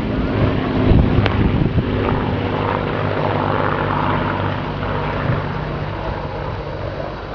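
Avro Lancaster bomber's four Rolls-Royce Merlin piston engines droning steadily in a flypast, slowly fading as the aircraft moves away. There are a few brief thumps about a second in.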